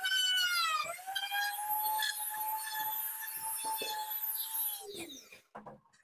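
Electric trim router's motor whining as its bit cuts a recess in a wooden door panel, the pitch wavering under load. About a second in the whine steadies at a slightly higher pitch, and near the end the motor is switched off and winds down with a falling pitch.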